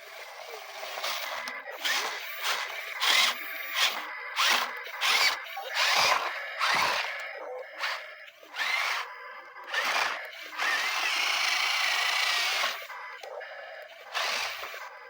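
Small electric gear motors of radio-controlled toy construction vehicles whirring in short bursts, about one or two a second, then one steady run of about two seconds near the end.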